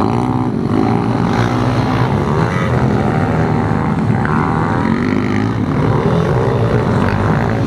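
Several pit bike engines racing together, their pitches rising and falling and overlapping as the riders open and close the throttle through the corners.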